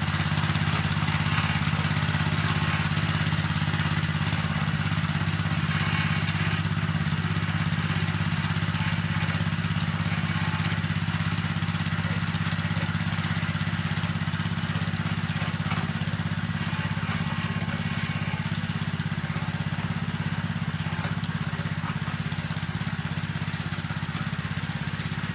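Walk-behind tractor's 7 hp single-cylinder petrol engine running steadily, with a brief clatter about six seconds in and again about ten seconds in.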